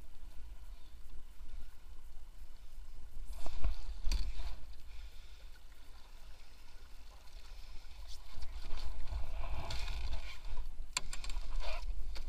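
Small sailing catamaran under way: wind buffeting the microphone, with water washing and splashing along the hulls, swelling in the second half. A few sharp knocks come about three to four seconds in and again near the end.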